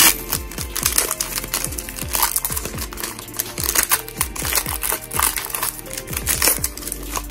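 Paper and cardboard packaging being handled: irregular rustling and crinkling with light taps as a small booklet is taken out of the box, over background music.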